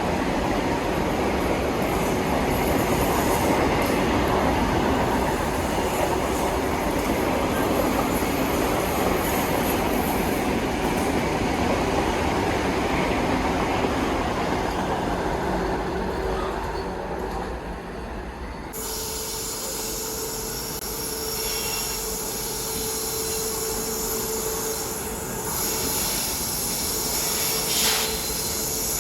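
A train running close by with a loud, steady rumble of wheels on the track. About two-thirds of the way through it cuts to a quieter train sound carrying a steady whining tone held for several seconds.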